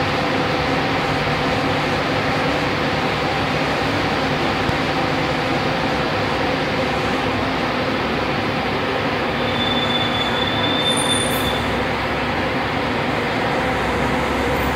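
Steady, loud rumble of a city bus engine running close by, with a brief high squeal about ten seconds in.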